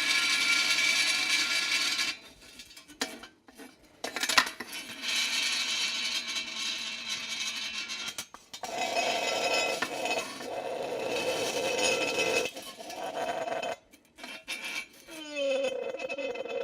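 Dry ice pressed against a metal cookie sheet, the metal vibrating and squealing in held, wavering tones that cut out and start again several times. Near the end, the pitch slides down and settles into a lower held tone.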